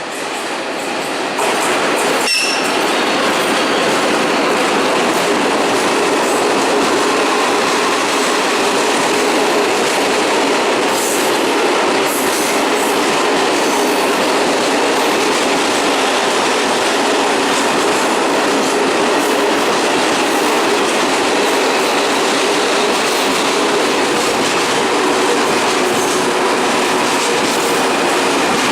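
Freight train running past, a loud steady noise of wheels on the rails. A brief sharp squeal about two seconds in.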